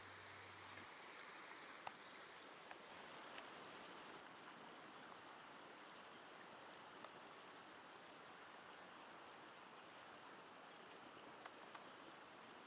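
Faint, steady rush of a small creek flowing over a shallow riffle, with a few faint ticks now and then.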